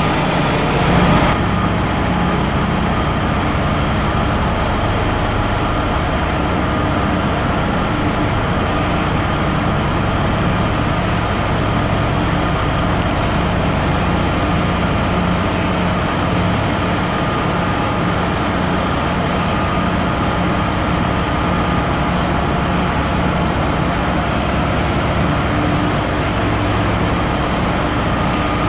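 Diesel city transit bus engine running steadily, a low, even drone with a faint steady whine above it.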